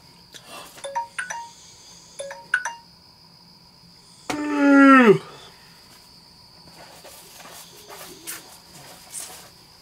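A man's loud, drawn-out cry that slides down in pitch, lasting about a second, a little before the middle. Before it come a few short, bright electronic chime tones.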